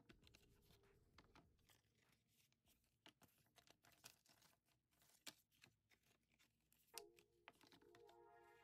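Faint crinkling, tapping and light scraping of paper and cardboard packaging being handled: the paper documentation packet and cardboard insert of an iPad Smart Keyboard Folio box. Soft music with steady held notes comes in about seven seconds in.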